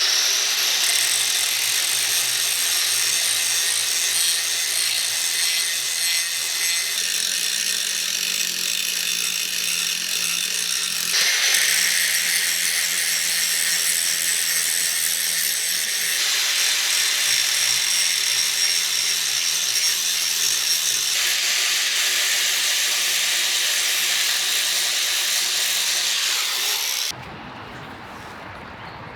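A power tool with a grinding disc runs steadily against the steel axe head, grinding rust pits out of the metal with light back-and-forth passes. Its pitch shifts a few times as the pressure or angle changes, and it stops near the end.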